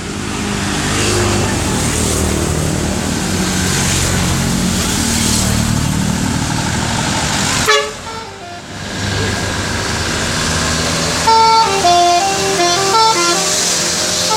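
A septic-tank suction truck's engine runs for the first half. In the last few seconds its telolet horn plays a short tune of stepped notes going up and down.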